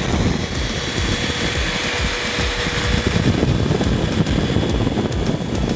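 Sinbo stick vacuum cleaner running and sucking up dirt, a steady motor whine over a rushing of air; a lower hum in the whine drops out about halfway through.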